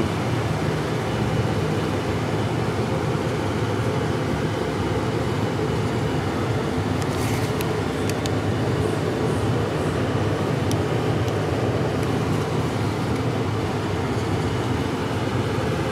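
Steady drone of a running fan or blower, even in level throughout, with a few faint clicks about halfway through.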